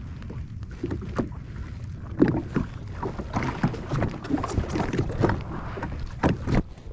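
Small waves slapping and knocking against the hull of a Sea-Doo Fish Pro jet ski, with wind rumbling on the microphone. The knocks come thick from about two seconds in.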